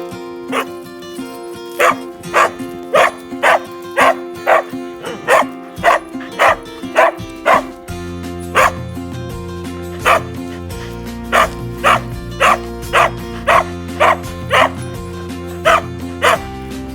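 Dog barking in a long run of short, sharp barks, about two a second, with brief pauses between bursts, over background music.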